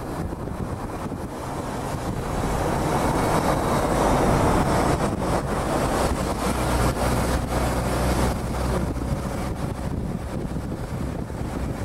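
Wind rushing over the microphone from a moving vehicle, over the steady low drone of the vehicle's engine and road noise. The rush swells a few seconds in and eases toward the end.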